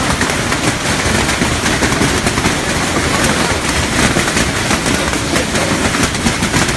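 Hailstones pelting down hard: a loud, dense, unbroken clatter of countless small impacts.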